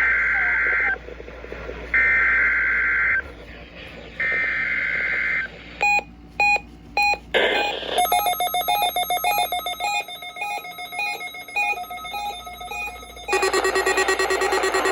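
NOAA Weather Radio EAS data header: three separate bursts of two-pitch digital warbling, each about a second long. They are followed by several seconds of fast beeps and overlapping data tones from several weather radio stations at once. About thirteen seconds in, a steady pulsing warning alarm tone near 1 kHz begins.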